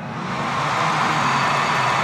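Stadium crowd noise at a cricket ground, swelling up over the first second and holding loud.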